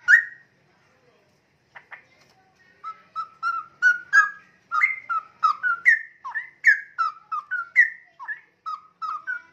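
Young straw-headed bulbul (cucak rowo) whistling: one sharp note at the start, then from about three seconds in a quick run of short whistled notes, two or three a second, sliding up and down in pitch.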